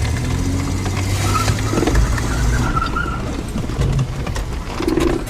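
Mitsubishi Pajero SUV driving slowly, its engine and road rumble heard from inside the cabin as a steady low drone, with a few small knocks and creaks.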